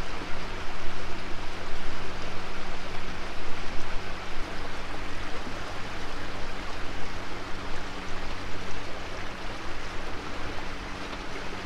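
Outboard motor running steadily at cruising speed, a constant low hum under a steady rushing of water and wind.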